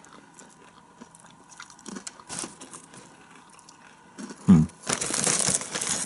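Crunching and chewing of candied cinnamon popcorn, with scattered crisp crunches. Near the end comes about a second of loud crinkling as a hand rummages in the foil popcorn bag.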